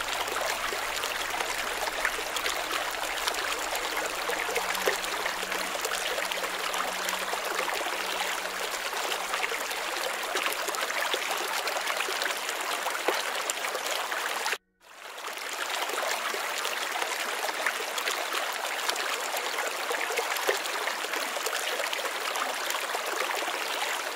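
Steady flowing water, like a trickling stream. Its sound cuts out for a moment about two thirds of the way through, then fades back in.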